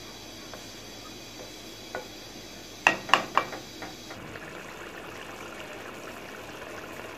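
Mutton curry simmering in a large aluminium pot, with three sharp ringing clanks of the pot close together about three seconds in. From about four seconds the curry is bubbling more steadily as it cooks down.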